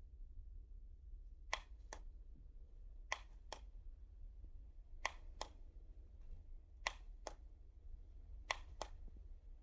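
Faint sharp clicks in pairs, the two clicks of each pair about half a second apart and a new pair every second and a half or so, five pairs in all, over a low steady hum.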